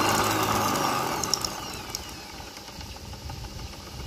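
Homemade barrel-lapping spindle running: an electric motor driving a drill chuck and barrel through a belt and pulleys, its speed set by a light dimmer. The motor whine glides in pitch at first, then the machine winds down, fading over about two seconds.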